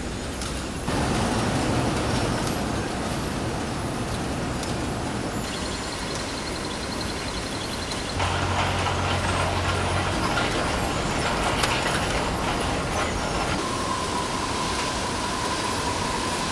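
Tea-processing machinery running: a dense, steady mechanical din that grows louder abruptly about a second in and again about eight seconds in, with a low hum for a couple of seconds after the second step and a steady whine in the last few seconds.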